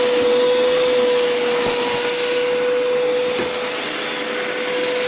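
Hoover Power Scrub Deluxe carpet cleaner running, a steady motor whine over the rushing hiss of its suction; the hiss shifts and sweeps in pitch around the middle.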